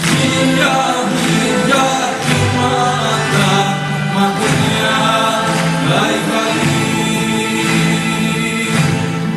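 Music: a song with singing voices on long held notes over instrumental backing.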